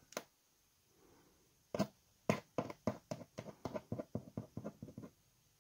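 Light, irregular taps and clicks, a few a second, starting about two seconds in: a soldering iron's tip dabbing at a blob of solder dropped onto a box.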